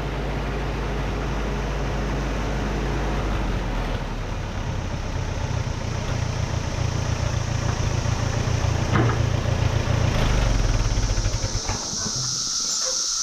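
1959 Allis-Chalmers D17 tractor's four-cylinder engine running steadily, then shut off near the end. As it dies away, the loud buzzing of cicadas comes through.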